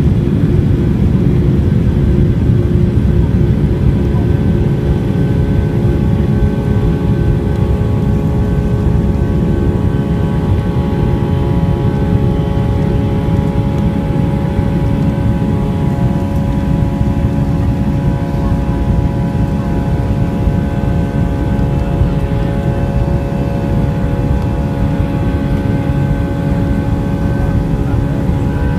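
Boeing 737-800's CFM56 jet engines at low, steady thrust while the airliner taxis, heard from inside the cabin: a deep rumble with several steady whining tones over it.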